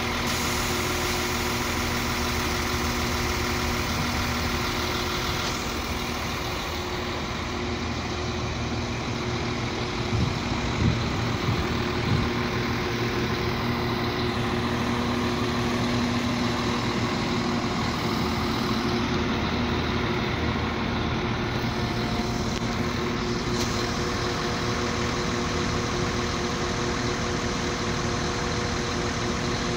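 CAF-built NI Railways Class 4000 diesel multiple unit with its underfloor diesel engine idling steadily, a steady hum with several held tones. A few brief knocks come about ten to twelve seconds in.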